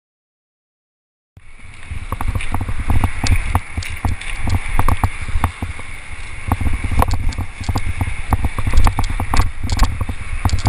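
After about a second of dead silence, a mountain bike rattles and clatters down rough granite rock, with frequent sharp knocks over a heavy rumble of wind on the helmet camera's microphone.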